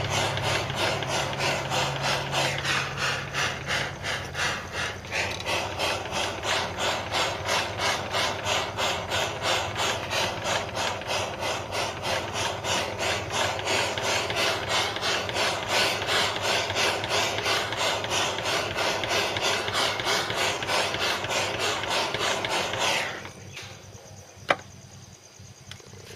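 Jeweller's blowtorch flame hissing with a fast, regular pulse as it heats silver chain for repair. It cuts off near the end, and a single sharp click follows.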